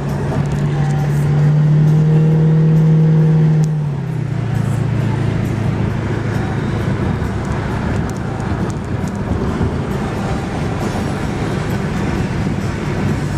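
Cougar car's engine running with a steady droning note, held at raised revs and louder for the first few seconds. It drops back to a lower, steady idle about four seconds in.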